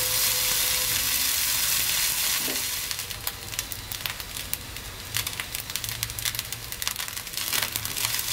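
Cooked rice with sprouted moong frying in a nonstick pan with a steady sizzle while a spatula stirs it. About three seconds in the sizzle drops and gives way to uneven scraping and crackling clicks as the spatula works through the rice.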